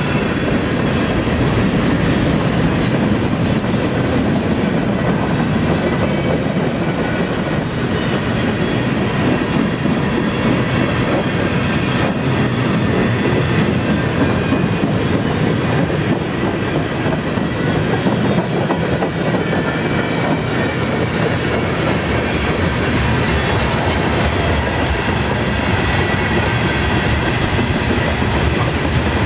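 Loaded freight cars of a long CN freight train rolling past at about 20 mph: a steady rumble of steel wheels on rail, with rhythmic clicking as the trucks cross rail joints.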